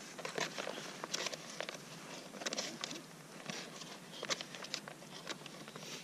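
Spoon stirring and scraping inside a just-rehydrated meal pouch, the bag crinkling in irregular bursts with sharp clicks.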